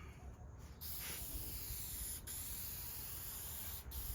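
Aerosol can of Zinsser Bullseye shellac spraying in steady hissing passes. It starts after a short pause near the start and breaks off briefly twice between strokes.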